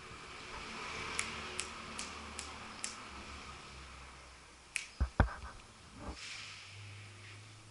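Airsoft gun firing single shots: five sharp snapping cracks about 0.4 s apart, then one more a couple of seconds later. A few heavy thumps follow.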